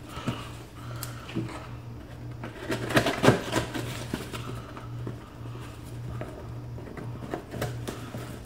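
Hands opening a cardboard shipping box: scattered clicks, taps and rustles, with a louder burst of handling noise about three seconds in, over a steady low hum.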